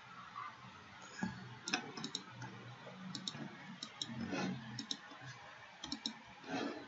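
Computer mouse clicking: scattered short sharp clicks, some in quick pairs and triplets, with a few soft low sounds between them.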